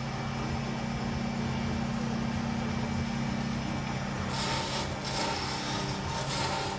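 Wood lathe motor running at speed with a steady hum. From about four seconds in, a small turning tool cuts into the spinning wooden pen blank in several short scraping strokes, shaping the finial.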